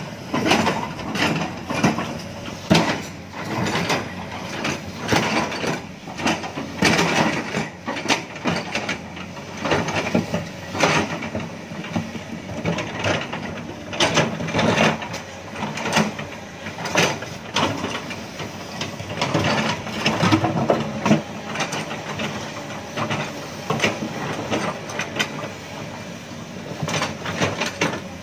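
Excavator loading soil into a dump truck: the diesel engine runs under load, with frequent irregular clanks and knocks of metal and soil.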